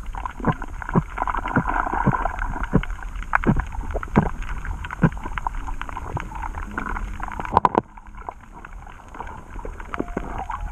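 Underwater sound heard through an action camera below the surface: a low steady water rush with sharp clicks about every half second, a louder cluster of clicks about three-quarters of the way through, after which it goes quieter.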